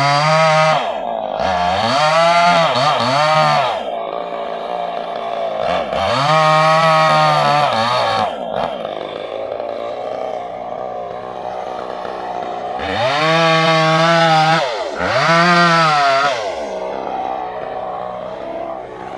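Gasoline chainsaw engine revved to full speed in about five bursts, dropping back to a lower idle between them.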